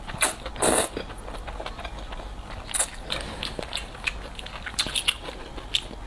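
A person slurping a mouthful of cold noodles in two quick sucks near the start, then chewing with wet mouth clicks and smacks.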